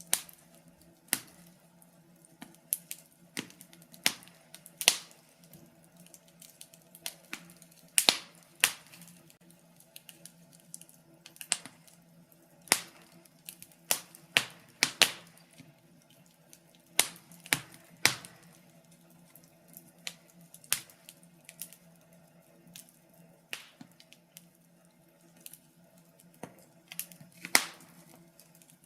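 Wood fire crackling in a fireplace: irregular sharp pops and snaps from the burning logs, some in quick clusters, over a faint steady background.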